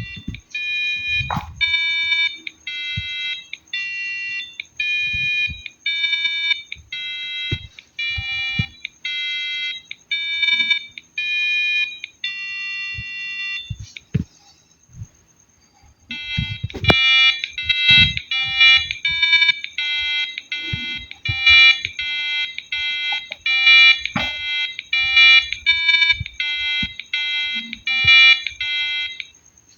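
Piezo buzzer driven by an Arduino Uno playing simple song melodies, one buzzy note at a time. A slow tune of about one note a second stops about halfway through. After a short pause a faster tune of about two notes a second starts. Faint low knocks sound now and then.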